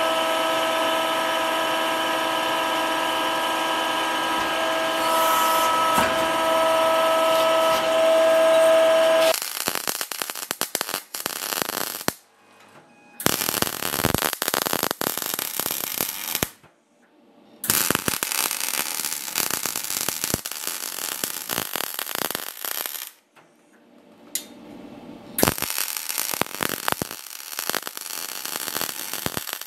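A press's motor hums steadily, a whine of several fixed tones. About nine seconds in, a MIG welder takes over: the arc crackles in four runs of a few seconds each, with short pauses between.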